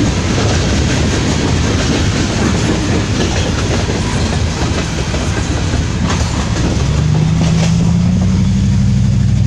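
Loaded coal hopper cars rolling past with a steady rumble and occasional clicks of wheels over rail joints. About seven seconds in, a steady low engine hum joins it.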